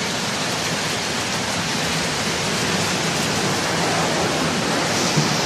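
Heavy rain pouring down with running water, a steady rushing hiss.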